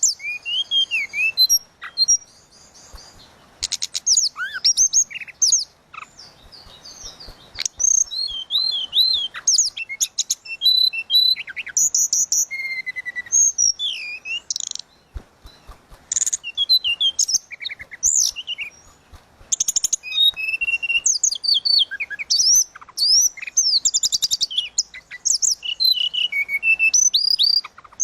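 A tledekan laut songbird singing continuously in a lively, varied song of quick high whistles, sweeping notes, chirps and fast trills, phrase after phrase with short pauses between.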